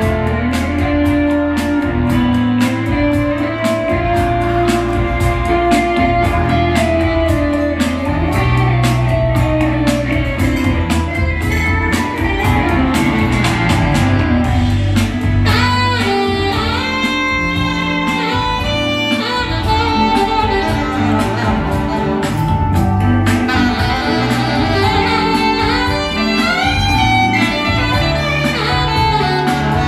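Live band music: an electric guitar solo over a bass line and a steady drum beat, with quick runs of notes in the second half.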